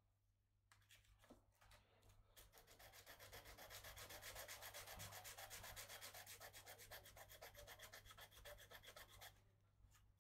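Quick back-and-forth hand sanding of a bamboo hulusi part: an even rhythm of several strokes a second that builds up about two seconds in and stops abruptly near the end.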